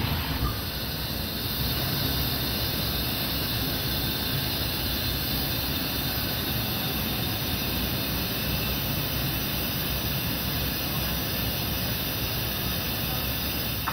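Flames from a ring of gas burner jets, burning with a steady, loud rush of noise after a brief pop or two as they catch at the start.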